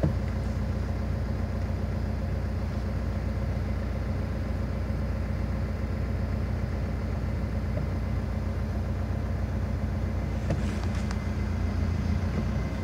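Off-road 4x4's engine running steadily at low revs, heard from inside the cab, with a few short knocks about ten and a half seconds in.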